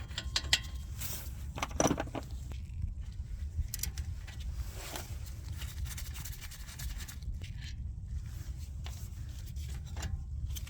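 Irregular metallic clicks and scrapes of a 17 mm socket wrench working the front brake caliper bolts loose, over a steady low rumble.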